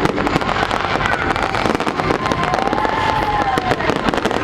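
Fireworks going off in a dense, continuous barrage of bangs and crackles. Around the middle, a long whistle rises and then falls in pitch.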